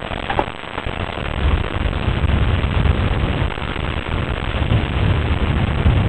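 Wind buffeting a camcorder microphone: a steady hiss with heavy low rumbling gusts that build from about a second and a half in. A couple of short knocks sound near the start.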